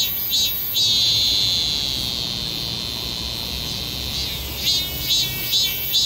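A cicada singing: a run of short, rhythmic pulses, about two or three a second, gives way about a second in to a continuous high buzz that lasts some three seconds and tails off, after which the pulsing resumes.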